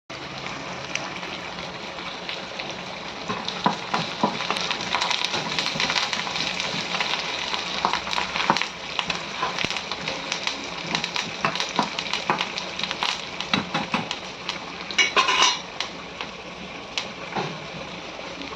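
Food sizzling in hot oil in a cooking pan while a metal ladle stirs it, scraping and knocking against the pan, with a louder clatter about fifteen seconds in.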